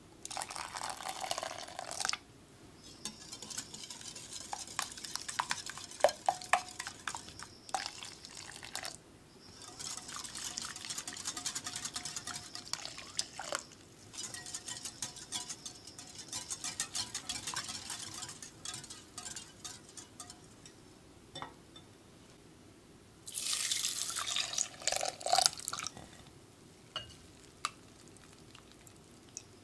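Wire whisk stirring a custard of egg, sugar and warm milk in a glass bowl, its wires ticking rapidly against the glass in several bursts. Milk is poured in at the start, and a second pour of liquid comes about three-quarters of the way through.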